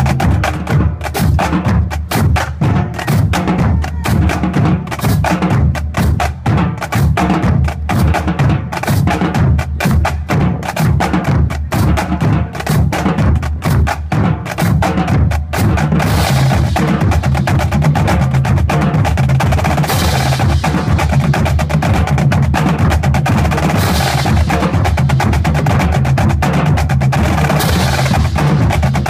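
Marching drumline playing: fast snare and rim clicks over tuned bass drums changing pitch. From about halfway through, cymbal crashes come every four seconds or so.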